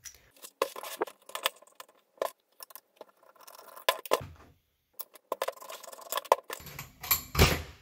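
Small metal clinks and knocks as a metal drill press vise and small metal parts are handled and set down on a work mat, with a heavier knock near the end.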